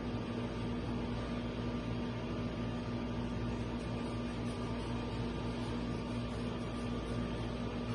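Steady mechanical hum with a low, unchanging drone and an even hiss, from a running appliance such as room air conditioning.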